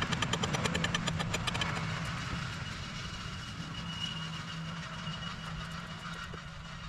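A small engine running steadily, with a fast run of sharp clicks over the first second and a half or so.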